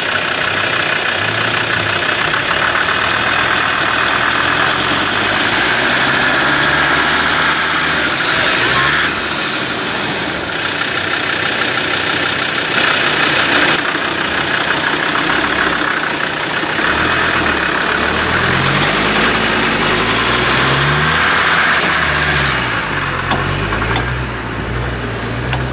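Vehicle engine running with its revs rising and falling again and again, more often in the second half, over a steady hiss.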